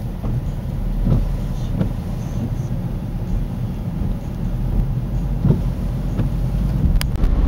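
Steady low rumble of a car's engine and tyres, heard from inside the cabin while driving, with a brief click near the end.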